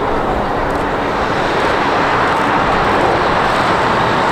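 Jet airliner passing close by, its engine noise a loud, steady rush that keeps growing slightly louder.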